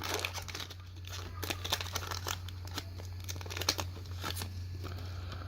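Plastic booster pack wrapper crinkling and tearing as it is opened, a run of irregular crackles.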